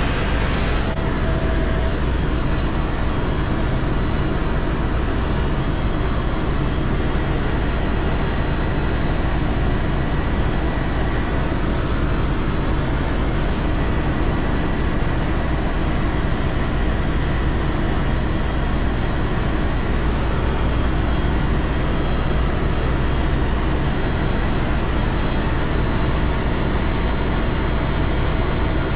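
Steady engine drone and rush of a vehicle in motion, with a strong low rumble and no change in pitch or level.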